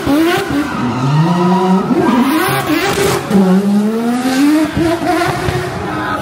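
Racing car engine revving up and down repeatedly while its tyres skid and squeal, spinning doughnuts.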